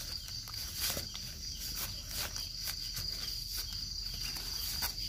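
Steady high-pitched insect drone, like crickets, with scattered short clicks and rustles of leaf litter being handled close to the microphone.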